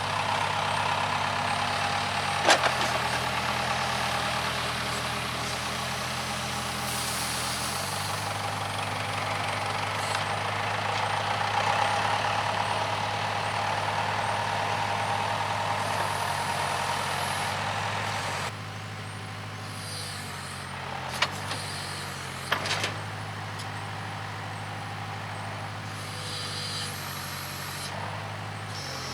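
Case 580K backhoe's diesel engine running under working revs, its pitch shifting as the hydraulics are worked. It drops to a quieter, lower speed about two-thirds of the way through. A few sharp metallic knocks come from the machine.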